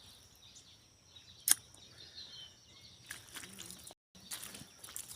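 Faint outdoor ambience with a steady high-pitched hiss and low hum. A single sharp click comes about a second and a half in, and the sound drops out completely for a moment near four seconds.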